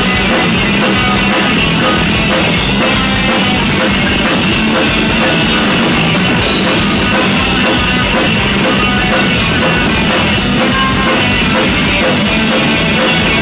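Rock band playing live with guitar and a drum kit, cymbals struck in a steady beat, in an instrumental stretch without singing.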